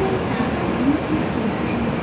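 Steady railway-station background noise: an even low rumble and hum, with faint distant voices.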